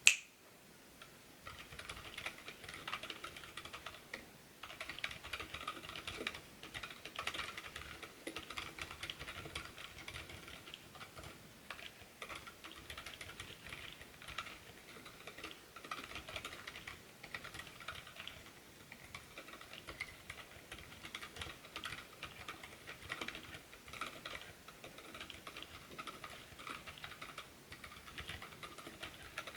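Steady typing on a TADA68 mechanical keyboard with stock, unlubed Gazzew Boba Silver silent linear switches, doubleshot PBT keycaps and an aluminum plate and case, with a brief pause about four seconds in. A single sharp click, the loudest sound, comes at the very start.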